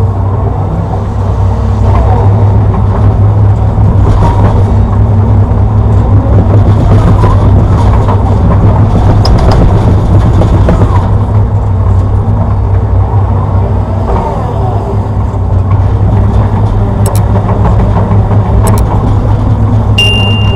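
Hitachi Zaxis 210-5G hydraulic excavator's diesel engine running steadily while digging, a deep drone that gets louder about two seconds in.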